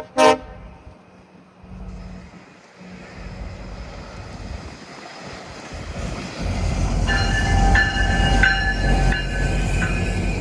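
GO Transit commuter train arriving: a short horn toot at the very start, then the train's rumble, growing much louder about six seconds in, with high metallic squealing from the wheels and brakes as it pulls in.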